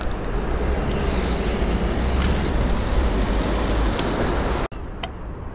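Steady outdoor road-traffic noise with a low rumble. It cuts off abruptly about four and a half seconds in, leaving a quieter background.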